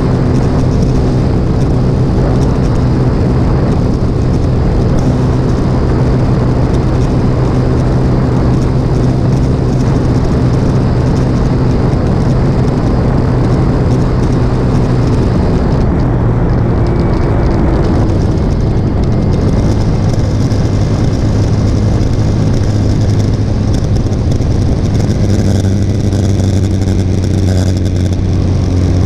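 Motorcycle engine running steadily at road speed over a constant rush of wind and road noise. About two thirds of the way through, the engine note drops a little and holds at the lower pitch.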